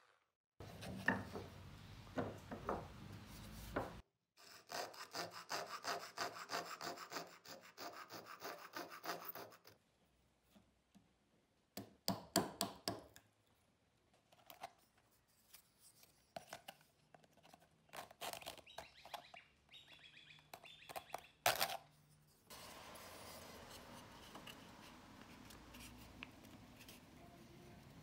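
Hand woodworking on thin plywood. A run of quick, even strokes cuts wood, then a chisel pares a small clamped plywood piece with scattered sharp cracks and taps.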